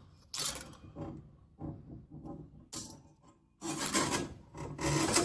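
Handling noise from pliers working a throttle cable's inner wire: irregular short bursts of scraping and rubbing, the longest about two thirds of the way through.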